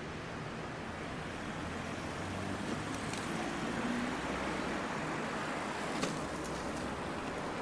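Road noise of a car driving: a steady rush of tyres and engine that swells a little in the middle, with a small click about six seconds in.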